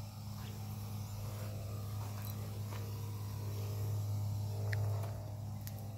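Steady low hum of a knapsack sprayer's pump while fertilizer is sprayed, swelling a little about two-thirds of the way through, with a few faint ticks.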